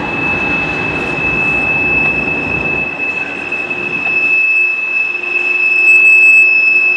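Wheels of passing coal hopper cars squealing against the rail in one steady high tone, over the rumble and rattle of the train. The low rumble drops away about three seconds in, and a lower steady squeal joins a little later.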